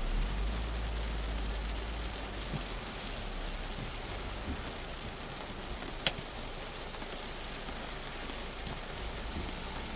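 Heavy rain falling on a car's roof and windscreen, heard from inside the cabin as a steady hiss. A single sharp click stands out about six seconds in.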